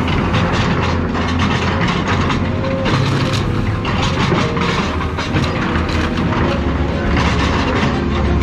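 Heavy scrap-demolition machine running with a steady low diesel rumble, while car bodies are crushed and torn, with frequent irregular cracks and crunches of bending, breaking metal.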